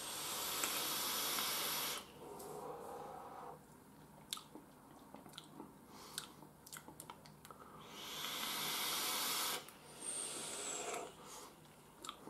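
Vape drawing on a rebuildable dripping atomizer: two long draws of about two seconds each, one at the start and one about eight seconds in, each a steady hiss of air and coil sizzle, followed by a softer exhaled breath. A few small clicks fall between the two draws.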